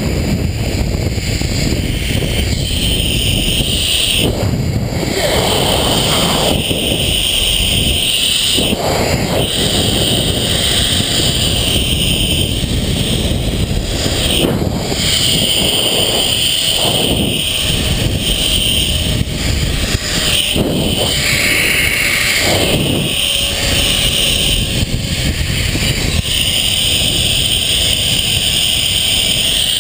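Zipline trolley pulleys running fast along the steel cable, a steady whir, under heavy wind rushing over the microphone, swelling briefly now and then.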